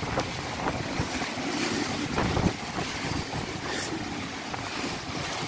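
Tropical-storm wind gusting and buffeting the microphone: a noisy rush that swells and eases with the gusts.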